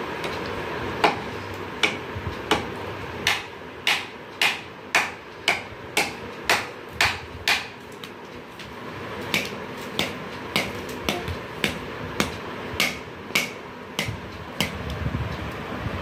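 A wooden stick knocking repeatedly on a floor mat, about two knocks a second, with a short pause midway.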